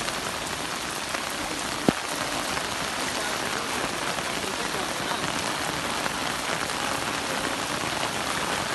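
Heavy rain falling, a steady even hiss of drops. A single sharp click stands out about two seconds in.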